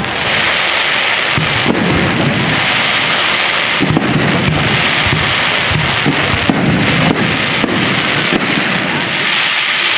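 Aerial firework shells bursting in quick succession: repeated booms over a steady, dense hiss.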